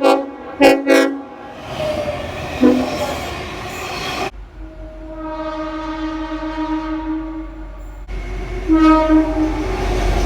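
Train horns: a few short blasts at the start, then longer steady horn notes, changing abruptly about four and eight seconds in, over the low rumble of a passing train.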